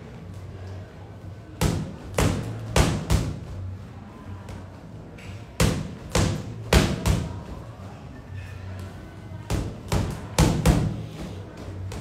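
Boxing gloves thudding against a freestanding punching bag in three quick combinations of four or five punches each.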